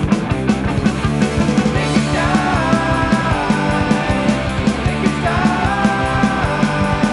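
Loud punk-rock music with a fast, steady drum beat and distorted guitars; from about two seconds in a melodic lead line steps between held notes.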